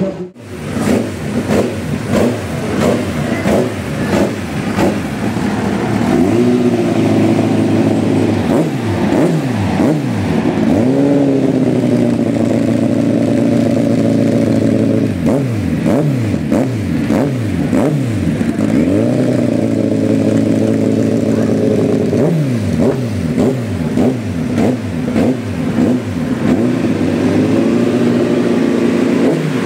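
Kawasaki racing superbike engine running at a steady idle, with repeated rising and falling revs from throttle blips and from other race bikes revving and changing gear.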